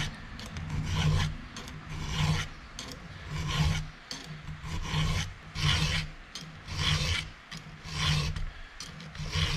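Hand file rasping across the chrome-plated cutters of a Stihl chainsaw chain, sharpening it in regular strokes about one a second.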